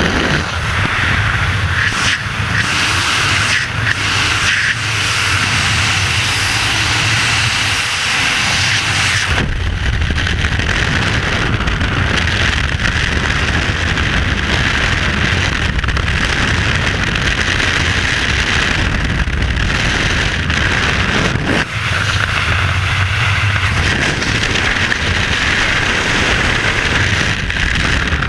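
Freefall wind rushing hard over a skydiver's helmet-camera microphone: a loud, steady roar of air. Its tone shifts twice, turning deeper and rumblier about a third of the way in, and again briefly past the two-thirds mark, as the body position in the airflow changes.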